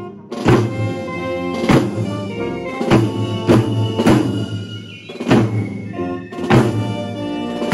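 A marching brass band of trombones and tuba playing a tune with military field drums, the snare drums beating out the march with strong accented strokes roughly every second.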